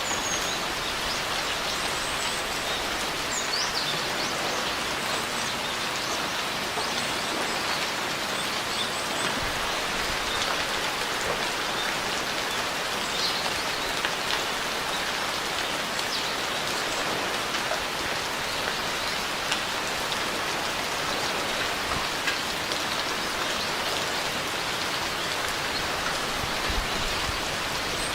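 Steady, even rainfall pattering on surfaces.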